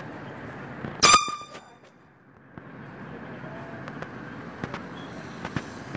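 Small handheld horn giving one short, high-pitched toot about a second in.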